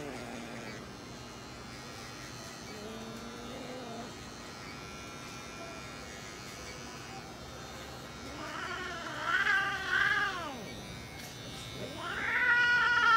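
Long-haired mixed-breed domestic cat yowling while it is held and its foreleg fur is clipped: a fainter call about three seconds in, then two loud, drawn-out calls that rise and fall in pitch in the second half. A small electric clipper buzzes quietly underneath.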